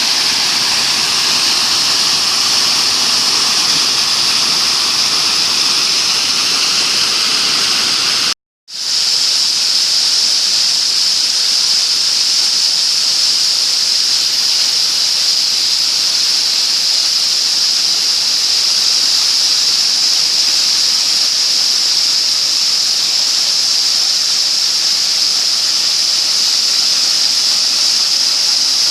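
Steady rushing of a waterfall. About eight and a half seconds in it drops out for a moment, then returns as a higher, hissier rush with less low body.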